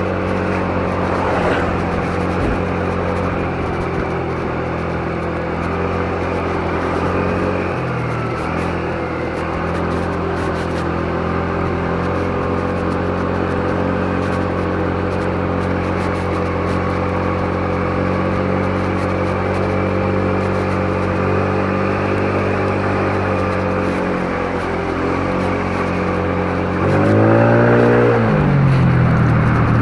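Motor scooter's small engine running at cruising speed, its pitch easing down and back up a few times as the throttle changes. Near the end it revs up louder and settles again.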